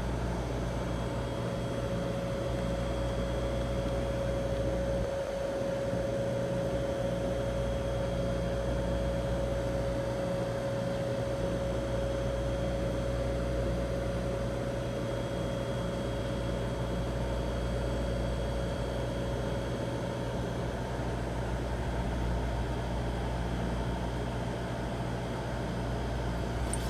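Manitowoc ice machine running with a steady mechanical hum and a constant mid-pitched tone.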